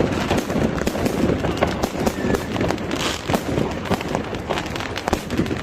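Fireworks and firecrackers going off in a dense run of sharp cracks and pops, with voices underneath.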